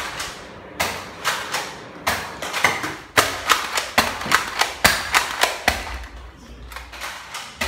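Toy Nerf foam-dart blasters being primed and fired in a rapid, irregular run of sharp clacks and thuds, several a second, thinning out in the last couple of seconds.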